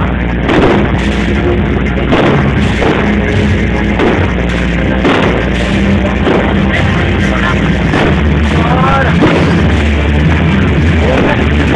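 Loud music with heavy bass from a sound system, mixed with fireworks banging about once a second. It is heard through a mobile phone's overloaded, distorting microphone.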